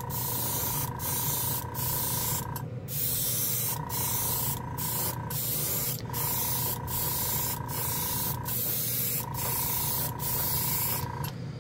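Gaahleri Ace gravity-feed airbrush spraying paint with a steady hiss, broken by short breaks about every second, while a thin whistling tone comes and goes in four long stretches. Underneath runs the low steady hum of the Gaahleri airbrush compressor, whose air supply is holding steady without pulsing.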